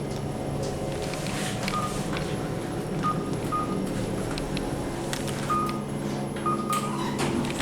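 Short, high single-pitch beeps from elevator push buttons, about seven of them at irregular intervals, mixed with light clicks, over a steady low hum in the elevator car.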